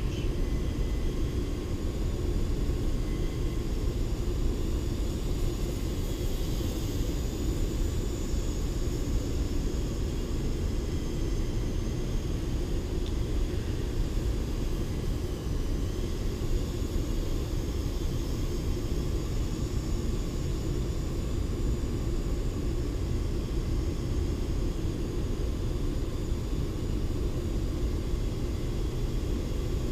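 Faint high whine of a small FPV Vapor indoor RC plane's electric motor and propeller, drifting slowly up and down in pitch as the throttle changes, over a steady low rumble.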